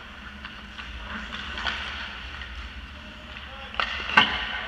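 Ice hockey play in an echoing rink: skates scraping the ice and light stick taps, then two sharp hockey stick clacks about four seconds in as players crowd the net, the second the loudest.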